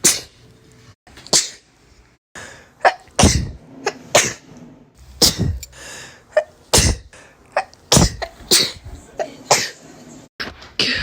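A person sneezing over and over, about ten sharp sneezes roughly a second apart, some coming in quick pairs.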